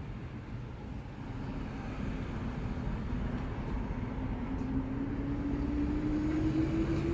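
Low steady rumble of a vehicle engine, with a hum that rises slowly in pitch and grows gradually louder.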